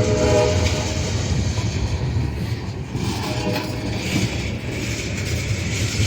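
Alco RS-11 diesel locomotive sounding its horn, the held note ending about half a second in and a short blast about three seconds in, over the steady rumble of the moving train.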